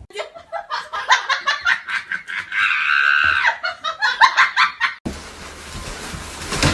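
A person laughing hard in quick bursts, with a longer squealing stretch in the middle. It cuts off about five seconds in, leaving a steady hiss.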